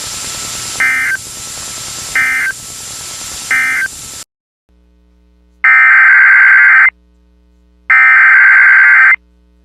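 Emergency Alert System digital data bursts. Three short buzzy bursts over steady radio hiss form the end-of-message code that closes a severe thunderstorm warning. After an abrupt cut to silence, two longer, louder bursts of the next alert's header follow.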